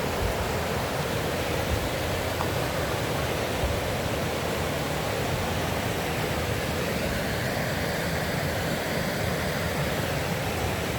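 Steady rush of a nearby waterfall, an even noise at a constant level.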